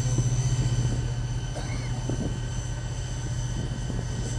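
MQ-8B Fire Scout unmanned helicopter's turboshaft engine running, with a rapid pulsing low thrum and a thin steady high whine. The sound grows a little weaker about a second in.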